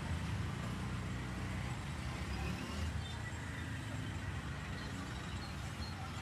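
Steady low rumble of street traffic with a faint even hiss.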